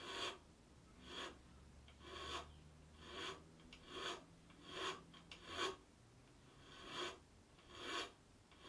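Short scraping strokes of a thin hand-held abrasive tool on the wood of a guitar headstock, cutting the small central notch of an open-book headstock shape. The strokes are faint and come in an even rhythm, about one a second.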